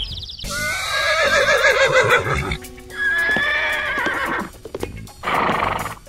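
A long wavering animal call, then a second steadier call, over background music; a short rushing noise near the end.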